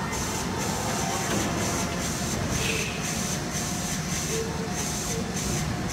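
Hokuso Railway 7260-series electric train standing at an underground station platform, giving a steady mechanical hum and rumble over the hall's echoing background. A high hiss pulses on and off about once a second.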